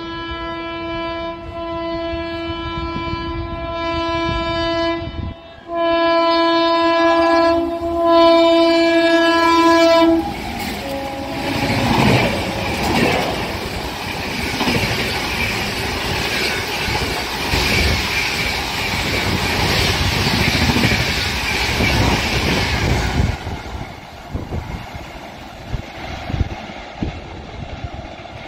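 WAP-7 electric locomotive sounding its horn in two long blasts, the first broken off about five seconds in and the second ending about ten seconds in, as a Shatabdi Express runs through the station. Then the coaches pass at speed for about twelve seconds, a loud rush and rumble of wheels on rail that dies away as the train clears the platform.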